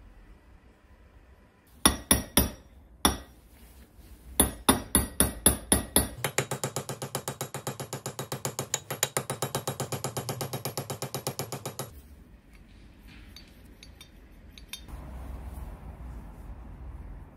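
Hammer striking a pin punch to drive a roll pin into a jackhammer's cast handle: a few hard metallic strikes, then a fast even run of lighter taps for about six seconds. Near the end, a soft hiss.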